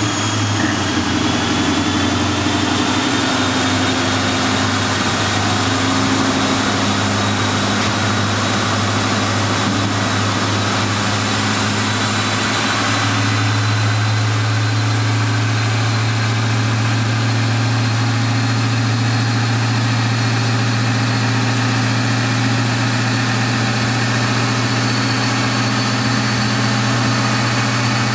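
Twin-turbocharged 2003 Mustang Cobra's 4.6-litre DOHC V8 idling steadily, with a thin, steady high whine above the engine note.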